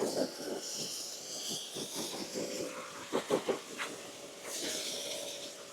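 Pressure washer spraying water through a 25-degree nozzle to rinse soap off a tractor. The hiss of the spray comes in two stretches over a faint steady hum, with a few knocks in between.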